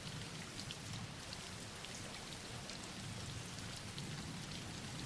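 Steady soft rain falling, an even hiss with scattered pattering drops.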